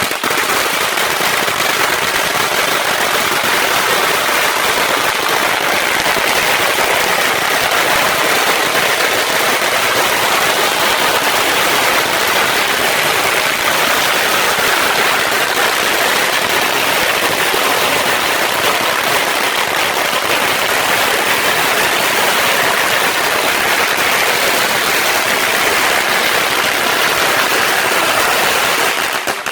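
A long roll of Tau Celebration all-red firecrackers going off as one loud, unbroken rattle of rapid bangs. Near the end it thins into separate pops.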